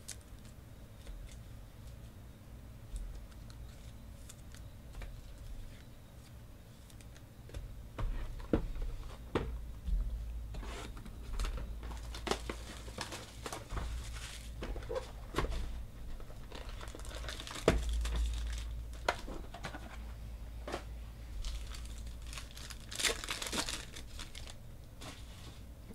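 Foil trading-card pack wrappers crinkling and being torn open, with clicks and rustling from handling the cards and their cardboard box. It is mostly quiet for the first several seconds, and the crinkling and tearing build from about eight seconds in.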